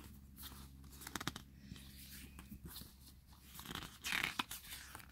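Glossy pages of a photo book turned and handled by hand: soft paper rustles and brushes, with a louder rustle about four seconds in.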